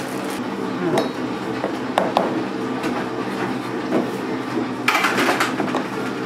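A knife scooping filling from a plastic tub and spreading it onto slices of bread, with sharp clicks and taps of the blade against the tub and a louder scrape a little after halfway. A steady mechanical hum runs underneath.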